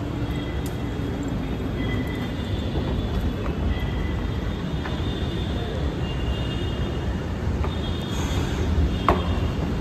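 Steady low rumble of metro station machinery, with faint high-pitched whining tones coming and going and a single sharp click about nine seconds in.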